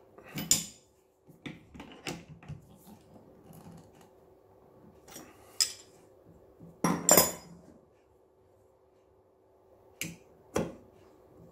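Metal clinks and knocks of a steel wrench on a nut and ball bearing as a bolt is tightened, then of a steel sleeve being handled against the bolt. Irregular sharp clinks, the loudest about half a second in and about seven seconds in, with two more near the end.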